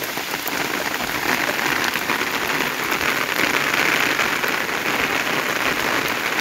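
Heavy rain falling steadily onto muddy ground, puddles and foliage, a continuous hiss of falling water that swells slightly about a second in.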